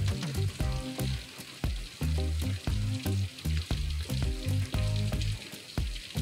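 Rain falling, a steady hiss with many sharp drips and taps, over music with a bass line that is louder than the rain.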